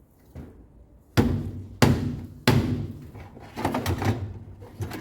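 A series of sharp knocks and clunks of hard objects being handled: three loud ones in quick succession starting about a second in, then several fainter ones near the end.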